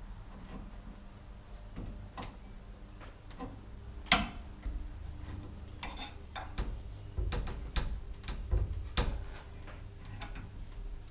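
Irregular metallic clicks and taps of a wrench and steel winding bars on a garage door torsion spring's winding cone as it is locked down, the loudest a sharp clack about four seconds in and a quicker run of clicks near the end.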